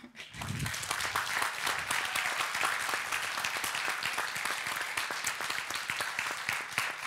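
Audience applauding: many hands clapping, starting about half a second in and keeping up at an even level.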